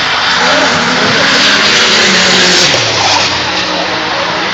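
Drift cars revving hard, the engine note rising and falling as the throttle is worked, over a steady screech of tyres sliding sideways.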